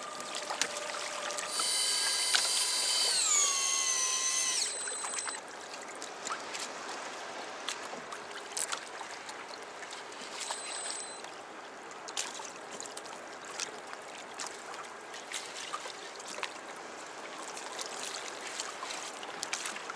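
Daiwa Seaborg electric fishing reel's motor whining for about three seconds, its pitch dropping partway through, as it winds in line on a hooked fish. After that, water lapping and splashing at the kayak's side with scattered small clicks.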